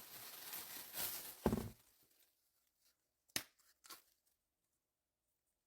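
A banana being peeled: tearing, rustling noise for about the first two seconds, then quiet broken by two short clicks.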